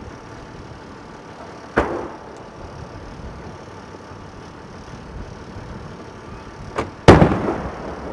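Large aerial firework shells: a sharp bang about two seconds in as a shell is launched, then near the end a much louder bang of a shell bursting overhead, trailing off in a long rumbling echo.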